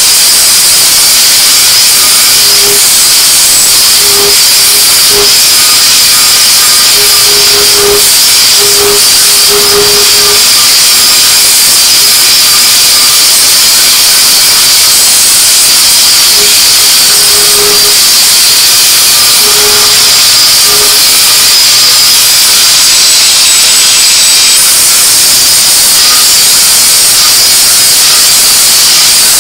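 Cordless angle grinder with an abrasive disc grinding the edge of a steel axe head, giving a loud, steady hiss of disc on metal. A faint hum comes and goes several times in the first third and again around two-thirds of the way through.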